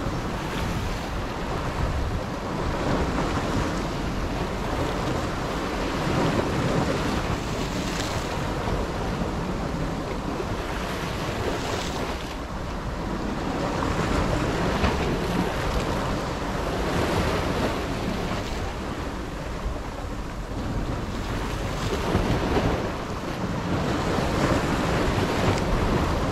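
Sea waves breaking and washing over shoreline rocks, swelling and easing every few seconds, with wind buffeting the microphone.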